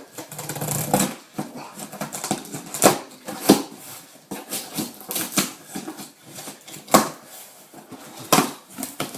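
Cardboard shipping box being opened and packing paper crinkling and rustling, with irregular sharp crackles.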